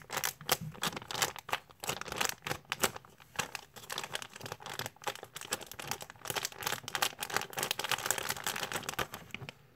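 The plastic packaging bag of a pineapple donut slow-rising squishy crinkling as it is held and turned in the hands: a dense, irregular run of small crackles.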